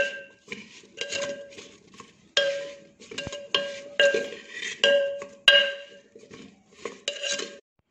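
A metal spoon stirring chopped raw plantain and elephant yam in an earthenware pot, with repeated irregular scraping and knocking strokes. Each stroke makes the clay pot ring briefly. The stirring stops shortly before the end.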